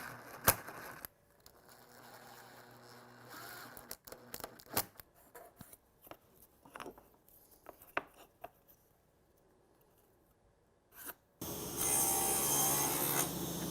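Workshop handling sounds: small parts clicking, knocking and scraping, with one sharp click about half a second in. About two seconds before the end, a loud steady mechanical noise with a hum starts and keeps going.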